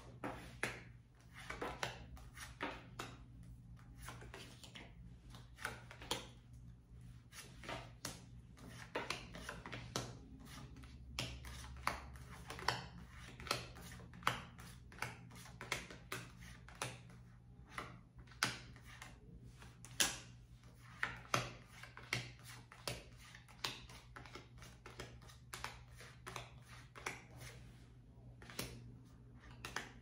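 Tarot cards being handled and laid down one by one on a wooden tabletop: light, irregular taps and flicks, one or two a second, over a low steady hum.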